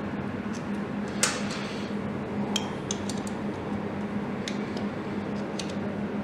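Small metal parts clicking and clinking in hand as an M6 bolt, nut and coil-pack bracket are fitted to a motorcycle engine's bell housing. The sharpest clink comes about a second in, with a ringing tick at about two and a half seconds. A steady low hum runs underneath.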